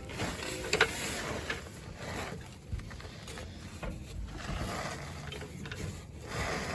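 Hand socket ratchet clicking in short bursts as the transmission cross member bolts are run in.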